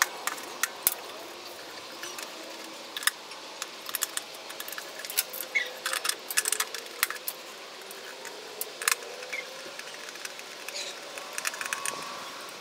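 Irregular plastic clicks and rattles from handling the Ambient Weather WS-1000 outdoor sensor array while rechargeable batteries are fitted into its battery compartment.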